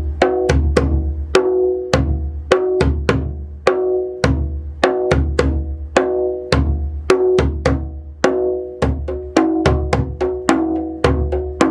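A djembe played by hand in a steady groove at about four strokes a second. Deep bass strokes and sharp slaps alternate, with ringing tone strokes filling every eighth note between them.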